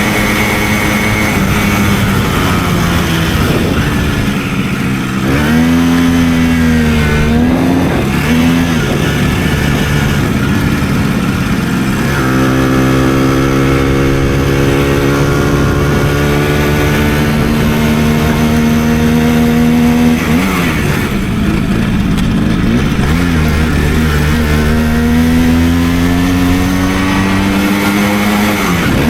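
Simson 50 cc two-stroke single-cylinder moped engine under way, its pitch climbing as it pulls and dropping sharply at each gear change: about five seconds in, again around twenty seconds, and near the end, with a brief rise and fall of the throttle between.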